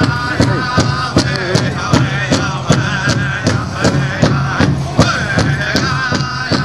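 Powwow drum group: a large drum struck in a steady, quick beat, about three to four strokes a second, under high, wavering group singing.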